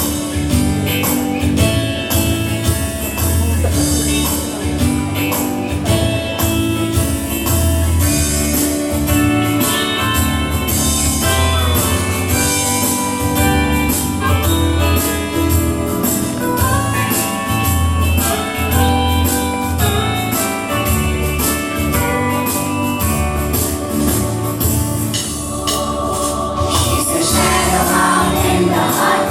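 A song with singing over instrumental music and a steady beat.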